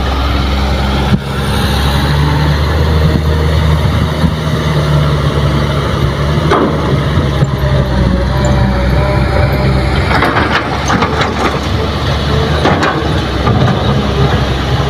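Heavy diesel engines running steadily: a Kobelco hydraulic excavator working as it loads soil into a dump truck, with the truck's engine idling alongside. A few short knocks are scattered through it.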